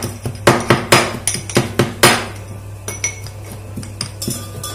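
Pestle pounding ginger, garlic and coriander in a mortar: sharp ringing strikes about four a second that stop about two seconds in. A few light metal clinks of a spoon against a pot follow.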